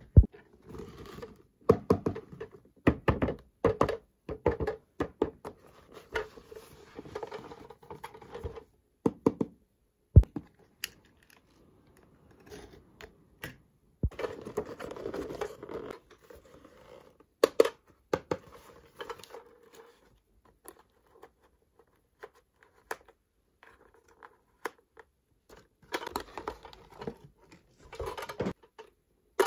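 Miniature toys and their packaging handled close up: irregular clicks, taps and knocks, with three stretches of rustling and scraping, and a quieter spell of only occasional clicks past the middle.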